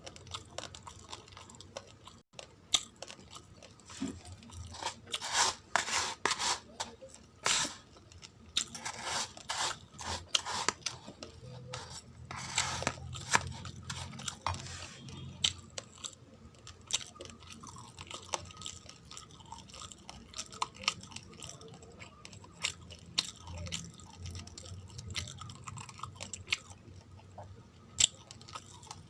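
Someone chewing raw, uncooked rice grains: close-up, irregular crunching and cracking, densest in the first half and sparser toward the end.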